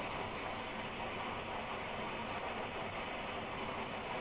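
Vacuum cleaner running on a long pole, a steady hiss with a thin high whine through it.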